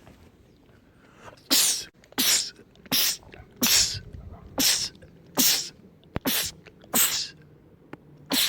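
A man sneezing over and over in quick succession: about nine sharp sneezes, roughly one every three-quarters of a second, starting about a second and a half in.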